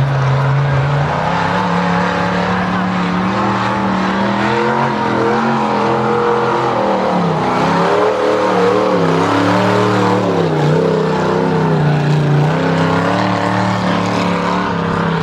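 Mud truck engine running hard through a mud pit, its pitch rising and falling as the revs change, with the deepest dips in the middle.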